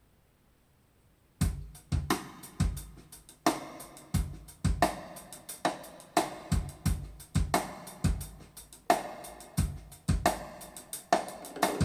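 Drum kit playing a steady groove of kick drum, snare and hi-hat, starting about a second and a half in after near silence, reproduced through Dynaudio Contour 1.3 SE hi-fi loudspeakers.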